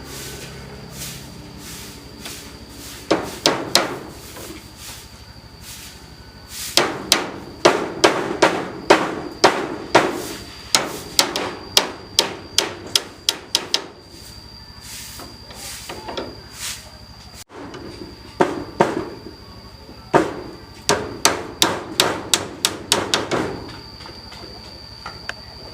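Repeated sharp knocks struck in runs of about two a second, with pauses of a few seconds between runs and a faster run near the end. A steady high thin tone sounds behind them at times.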